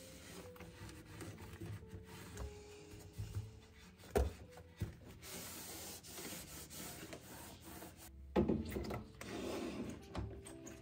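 Microfibre cloth in a rubber-gloved hand wiping a laminate cabinet shelf in repeated rubbing strokes. There is a sharp knock about four seconds in and a louder bump just past eight seconds, followed by more rubbing.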